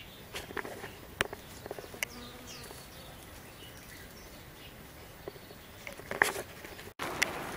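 A bee buzzing faintly at the wildflowers, with a few short sharp clicks.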